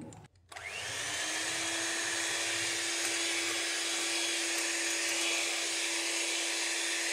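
Electric hand beater starting up about half a second in, spinning up quickly, then running at a steady whine as it whips eggs with powdered sugar for a sponge batter.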